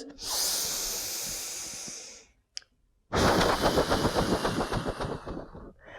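A person breathes in audibly through the nose for about two seconds, then, after a short pause, breathes out through the mouth for nearly three seconds in a rapidly pulsing, fluttering stream of air.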